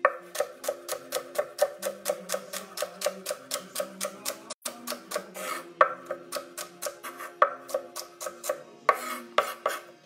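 Chef's knife chopping celery on a wooden cutting board: rapid, even strikes of the blade on the board, about four to five a second, with a brief break near the middle. Soft background music with low held notes plays underneath.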